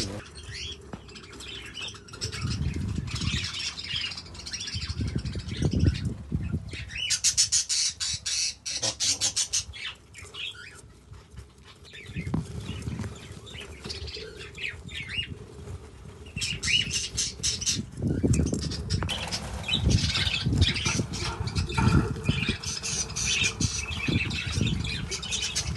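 A flock of budgerigars chattering and squawking, with warbled calls and trills. Stretches of low rumbling noise come and go underneath.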